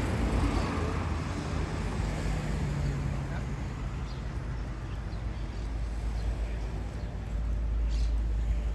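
Street ambience: a steady low rumble of road traffic, with faint ticks and knocks here and there.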